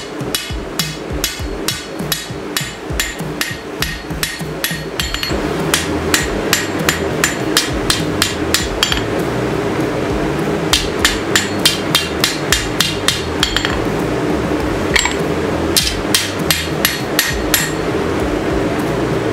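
Hammer striking hot 5160 steel on an anvil while forging out a sword blade: a steady run of ringing blows, about two or three a second, broken by two short pauses. A steady low hum runs underneath and grows louder about five seconds in.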